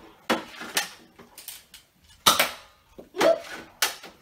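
Toy foam-dart blasters being fired, with darts smacking into things: about five sharp clacks spread over four seconds, each dying away quickly.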